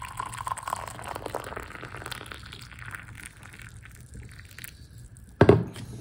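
Just-boiled water poured from a small stainless-steel electric kettle into a glass tumbler, a splashing pour lasting about four and a half seconds. Near the end the kettle is set down with one sharp knock.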